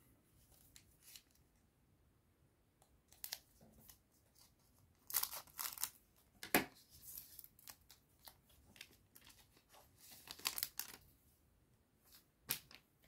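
A foil trading-card booster pack being opened by hand: short bursts of crinkling and tearing of the wrapper, several times.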